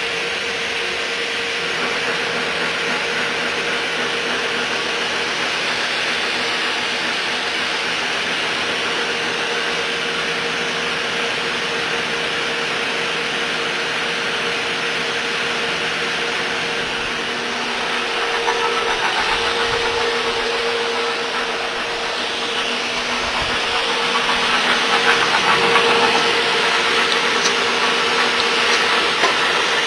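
CNC drilling and routing machine working a curtainwall extrusion: a steady mechanical whir with a constant hum, growing louder and rougher in two stretches in the second half as the spindle cuts.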